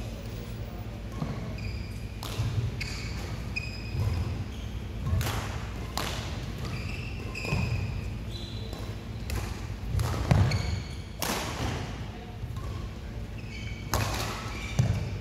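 Badminton play echoing in a large hall: several sharp racket strikes on shuttlecocks a second or more apart, with short high shoe squeaks on the court floor between them.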